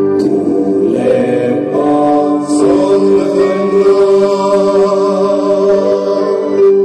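A choir of many voices singing together, mostly in long held notes.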